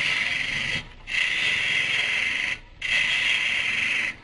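Turning tool cutting the stem of a green-wood goblet spinning on a Jet Mini lathe: a steady shaving hiss in three passes, each about a second to a second and a half long, with short breaks between.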